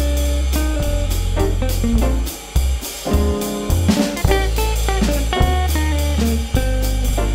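Background music: plucked guitar over bass and drums with a steady beat, dropping briefly about two and a half seconds in.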